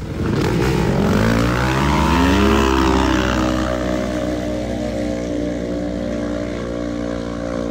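A vehicle engine revving up over the first two to three seconds, then held at high, steady revs.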